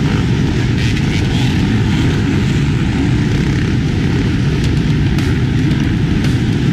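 Dozens of enduro dirt bikes accelerating together off a mass start: a dense, continuous blend of many engines revving at once, loud and unbroken.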